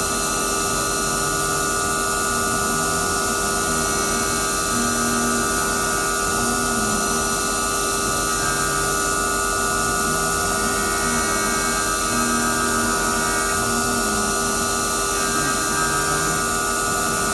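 5-axis CNC machining centre milling a metal blade: a steady spindle whine, with lower tones that shift every second or so.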